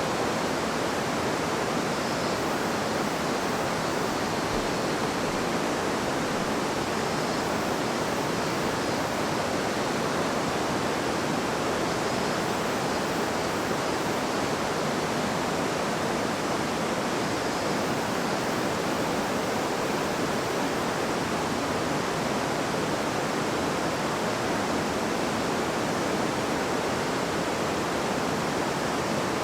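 River water babbling and rushing over rocks: a steady, even flow with no change in level.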